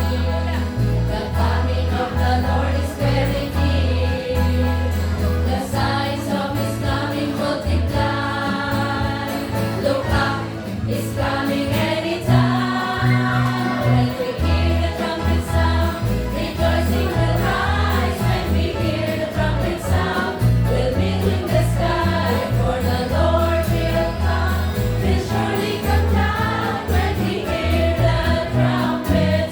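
A choir singing a gospel song over instrumental accompaniment, with a bass line stepping steadily from note to note underneath.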